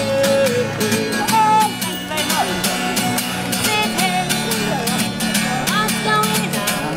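Street busker's acoustic guitar strummed steadily, with a woman singing a wavering melody over it.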